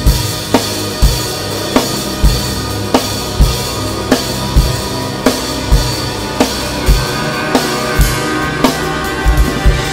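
Drum kit playing a steady beat, with a bass-drum and snare hit about every half second to two-thirds of a second over sustained tones, and a quick flurry of three hits near the end.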